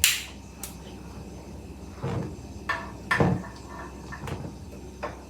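Kitchen clatter: one sharp, loud knock at the start, then several softer knocks and thumps from handling pots and kitchen fittings.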